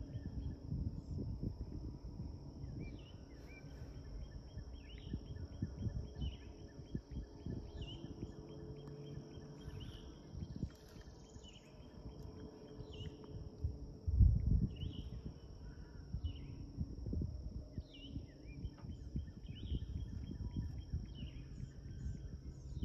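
Swamp outdoor ambience: a steady high insect drone with short bird chirps repeating about once a second, over low background noise. A single thump about fourteen seconds in is the loudest sound.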